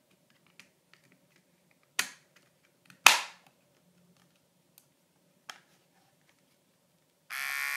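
Plastic housing of a Braun HC5050 hair clipper snapping shut as the top cover is pressed into place: two sharp snaps a second apart, then fainter clicks. Near the end a steady buzz begins.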